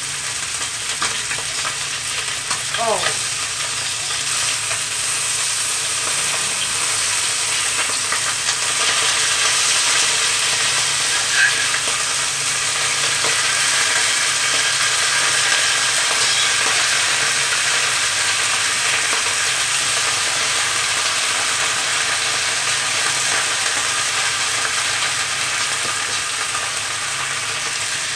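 Whole threadfin fish pan-frying in hot oil in a wok: a steady sizzle.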